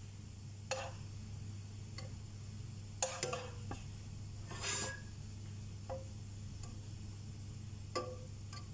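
Black plastic spatula knocking and scraping against a stainless steel frying pan while stirring broccoli in butter: irregular light knocks, a cluster about three seconds in and a longer scrape a little later, over a steady low hum.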